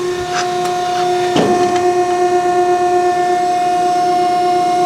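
Hydraulic pump of a CNC press brake running with a steady whine. About a second and a half in there is a knock as the bend cycle starts, and the whine grows a little louder afterwards.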